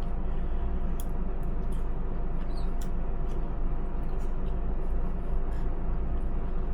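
Someone chewing a mouthful of chicken casserole, with small scattered mouth clicks, over a steady low background hum.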